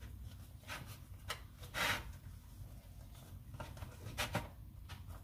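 Hands folding and rolling a flour tortilla wrap on a plastic cutting board: a few soft brushing rustles of the bread against the board and fingers, the loudest about two seconds in and a quick pair near the end.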